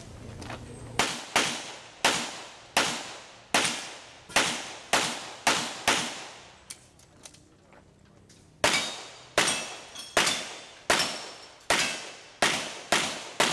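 Handgun shots fired in quick succession during a practical shooting course of fire, each with a short ringing echo. About a dozen shots come in fast pairs and singles, then a pause of about two seconds, then another string of about a dozen shots.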